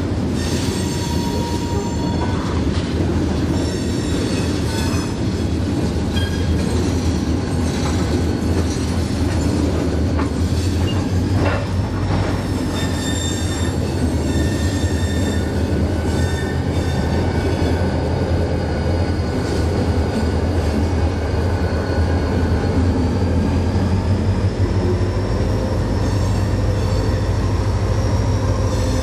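Freight train of rock hopper cars moving behind a Wheeling and Lake Erie diesel locomotive: a steady low engine drone with high wheel squeals that rise and fall, and a few clanks from the cars.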